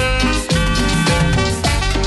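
Cumbia music playing loud over a dance sound system, with a steady beat and sustained melody.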